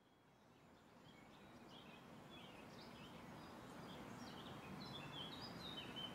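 Outdoor ambience fading in: an even hiss of background noise with small birds chirping in short, high calls that grow more frequent toward the end.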